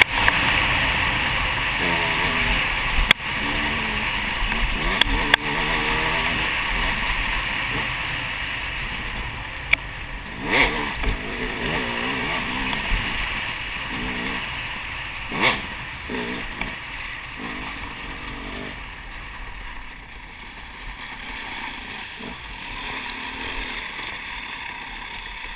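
Dirt bike engine revving up and down on a rough woodland trail, with wind rushing over the helmet camera and a few sharp knocks from the bumps. The engine gets quieter over the second half as the bike slows.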